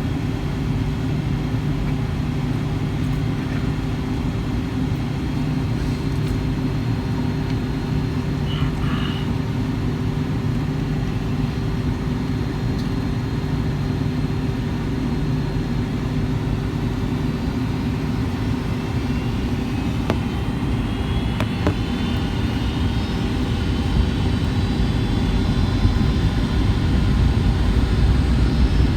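Steady cabin noise of a Boeing 757-200 airliner on approach: a low rumble of engines and airflow with a steady hum. A few light clicks sound, and from about two-thirds in rising whining tones grow while the noise gets a little louder.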